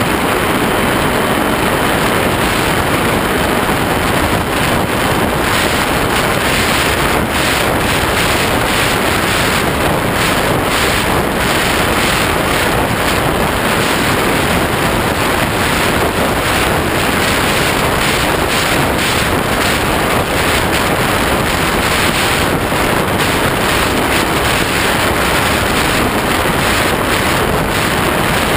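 Steady loud rush of wind over an onboard GoPro camera mounted under the wing of a ParkZone Habu electric ducted-fan RC jet in flight, mixed with the ducted fan running.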